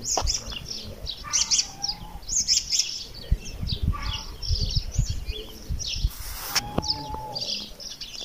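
Small birds chirping repeatedly in short high bursts, with scattered low thumps and a brief rush of noise about six seconds in.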